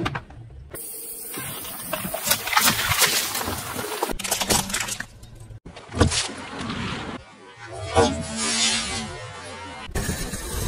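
A car tyre rolling over small objects and crushing them: plastic cracking and foil crinkling in short crunches, broken up by abrupt cuts. Near the end a firework fountain starts spraying with a steady hiss.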